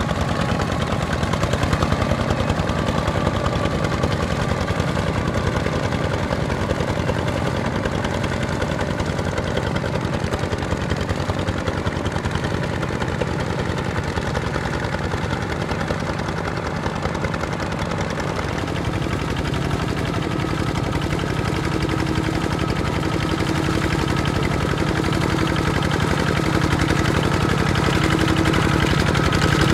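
Single-cylinder Kubota ZT155 diesel engine of a two-wheel walking tractor chugging steadily under load as it drives its steel cage wheels through deep paddy mud. The sound grows louder over the last several seconds.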